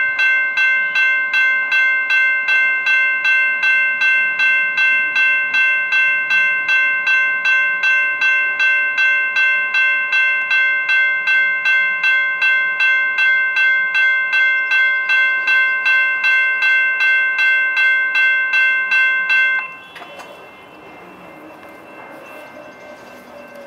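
Railroad crossing bell ringing in a fast, even rhythm of about two and a half strokes a second. It cuts off suddenly near the end, leaving a much quieter steady background noise.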